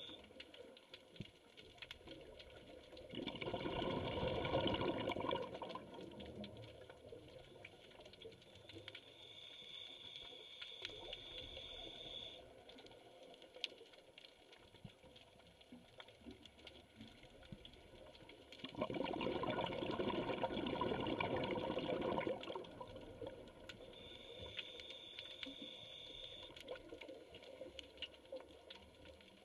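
Scuba diver breathing through a regulator underwater: two rushes of exhaled bubbles, each about three seconds long and about fifteen seconds apart, with a quieter, higher hiss between them as air is drawn in.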